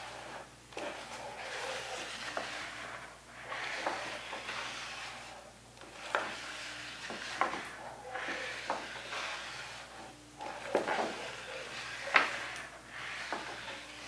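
Photographic developer sloshing in a plastic tub as a large sheet of photo paper is pushed back and forth through it. The sound comes in washes every two to three seconds, with a few light knocks against the tub.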